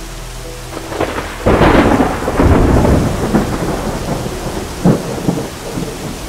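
Heavy rain pouring onto a corrugated sheet roof, with a clap of thunder breaking in suddenly about a second and a half in and rumbling away slowly over the next few seconds. A single sharp knock comes near the end.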